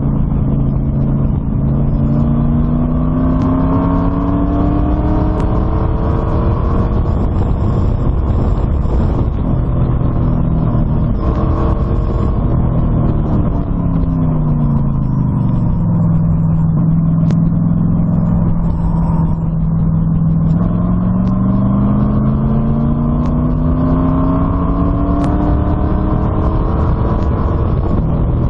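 LS1 V8 engine running loudly. Its pitch climbs slowly over the first few seconds, sinks back about halfway through, holds level for a few seconds, then climbs again.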